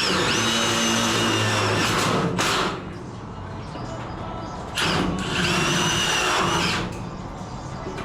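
Power drill-driver motor whirring in two bursts of about two seconds each, its whine rising as it spins up and falling as it stops.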